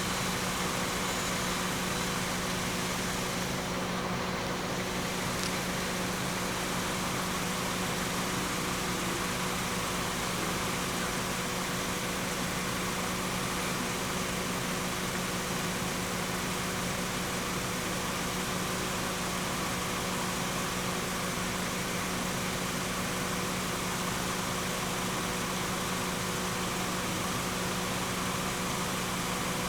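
An engine idling steadily: a constant low hum with an even hiss, unchanging throughout.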